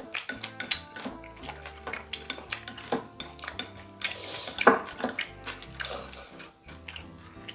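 Wooden chopsticks clicking and tapping against ceramic bowls and plates while eating, with one louder knock a little past halfway. Soft background music with a steady bass line plays underneath.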